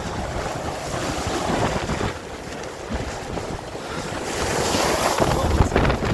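Gale-force wind gusting hard and buffeting the microphone, with loose material flapping and rattling in quick slaps; the gusts build up and grow louder toward the end.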